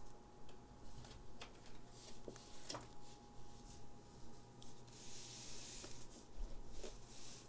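Quiet fingertip scratching and rubbing on a cloth playmat, with scattered light ticks. About five seconds in comes a soft hissing rustle as a cardboard trading-card box is slid and lifted.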